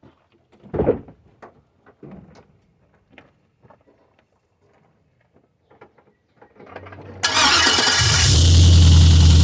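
A few small knocks and a louder thump about a second in. Then, with about three seconds left, a GM LQ4 6.0-litre V8 cranks briefly on the starter, catches with a loud burst and settles into a steady idle.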